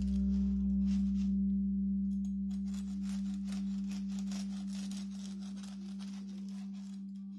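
Calm background music holding a sustained low tone while it fades out. Over it, a bread knife saws through a crusty baguette on a wooden board, the crust crackling with each stroke, with a short pause about a second in.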